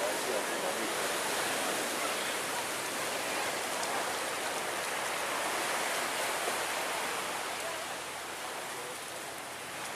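Steady hiss of surf washing onto a sandy beach.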